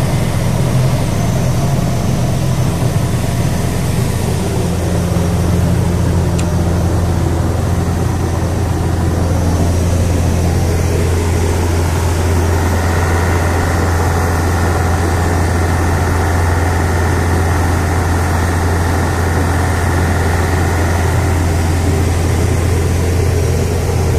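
A motorboat's engine running steadily under way: a constant low drone with rushing noise over it. A faint higher whine joins about halfway through and fades near the end.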